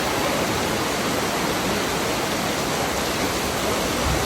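Heavy thunderstorm rain pouring steadily.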